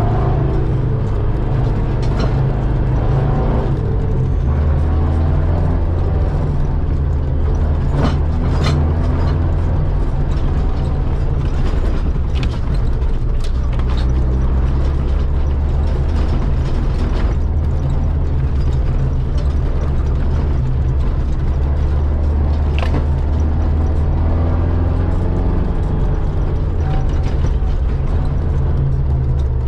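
Off-road 4x4's engine running steadily under load, a low drone whose pitch shifts a few times with the throttle, heard from inside the cabin. Scattered knocks and rattles come from the body and suspension on the rough dirt track.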